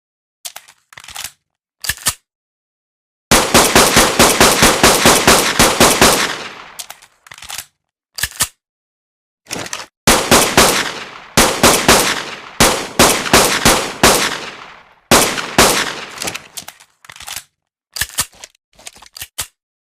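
Pistol gunfire sound effect: single shots and rapid strings of shots, about five a second, with sharp cut-offs and dead silence between the groups.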